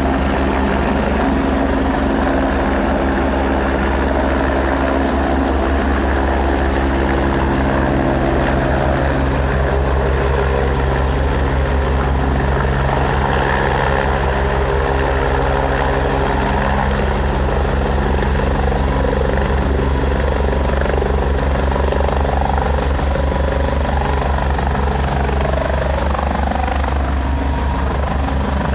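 Helicopter coming in to land: a steady, fast chop of the rotor blades over a constant engine drone. Its tones shift about 8 and 12 seconds in, and some drop away near the end.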